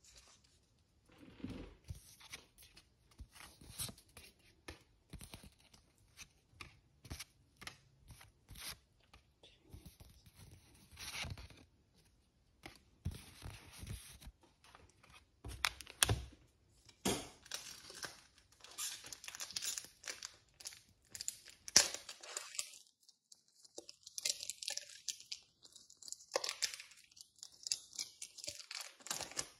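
Pokémon trading cards and their packaging being handled: irregular rustling, crinkling and small taps. The sound grows denser and more crackly in the last third.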